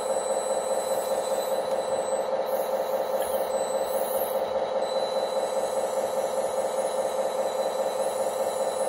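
Steady droning hum with a fast, even pulse from the radio-controlled tractor and crane model. It does not change as the crane works.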